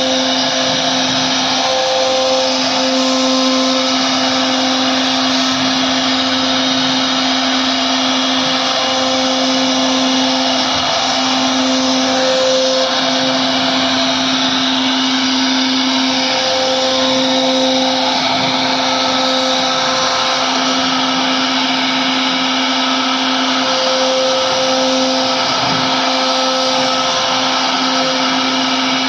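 CNC router spindle running at a steady high speed while its bit carves wood: a constant motor whine over an even rushing noise of cutting.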